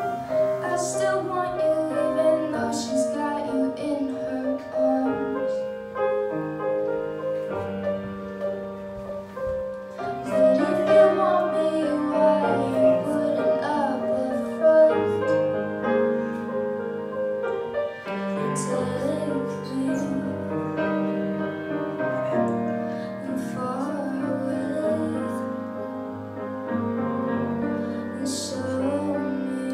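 A young woman singing a slow song live into a microphone over piano accompaniment.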